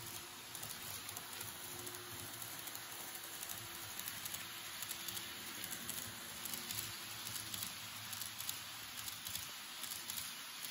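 Model 583 series electric train running along the layout track: a steady, fine rolling rattle of small wheels with rapid little clicks over the rail joints, and a faint motor hum under it.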